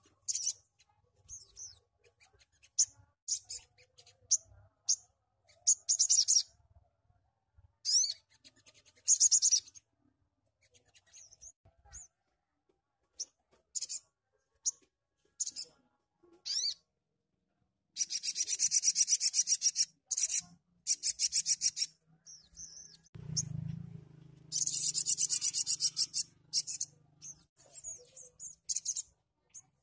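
Sogon (sogok ontong), a small caged songbird, singing in bursts of very high, rapid rasping trills with short chips between. The two longest trills come about two-thirds of the way in and last a few seconds each.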